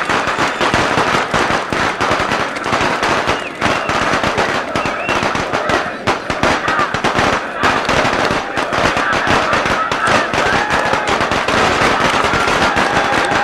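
A string of firecrackers going off in a rapid, unbroken crackle, with a crowd cheering and shouting underneath.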